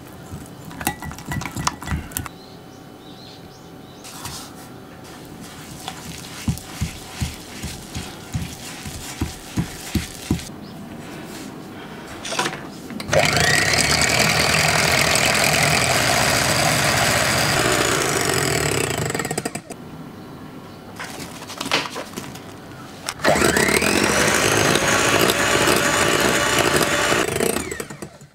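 Electric hand mixer whipping egg whites into meringue in a glass bowl, running in two long stretches, each starting with a rising whine as the motor spins up. Before it, a utensil clicks and taps against a glass jug as flour is stirred into the batter.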